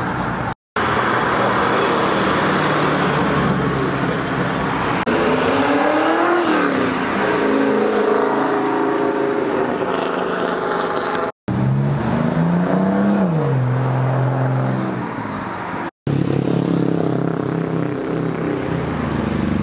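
Cars accelerating along a street one after another, their engines revving up and falling back as they pull away and pass. Motorcycles ride past near the end. The sound drops out briefly three times.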